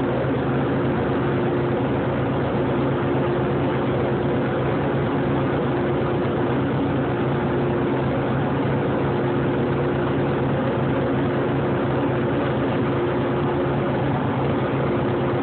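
Harley-Davidson V-twin engine running at a steady speed on a dynamometer, an even drone that holds one pitch with no revving.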